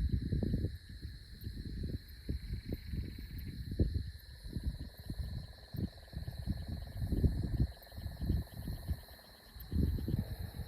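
Wind gusting and buffeting the microphone in irregular low bursts, over a steady high-pitched trilling chorus of insects.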